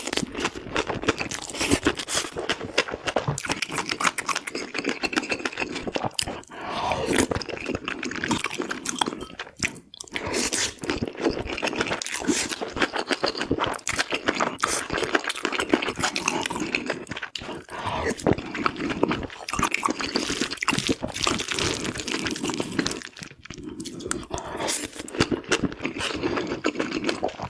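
Close-miked eating: a person chewing and crunching food with a steady stream of wet mouth clicks and crunches, with only a couple of short breaks.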